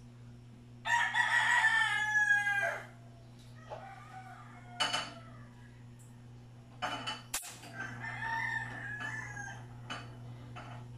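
A rooster crowing, a loud crow of about two seconds, then a second, quieter crow later on. A few sharp knocks fall between the crows, over a steady low hum.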